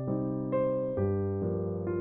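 Background music: a soft electric piano playing sustained chords, a new chord struck about every half second.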